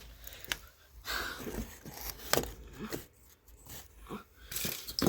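Scattered light clicks and knocks with brief rustling as objects are handled and shifted about.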